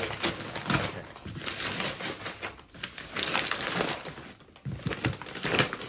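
Wrapping paper being torn and crumpled off a large gift box, in a series of irregular rips and rustles with a short lull a little past the middle.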